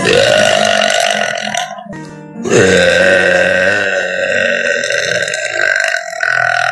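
A girl's loud, long burps: one of about two seconds, then after a short break a longer one lasting about five seconds.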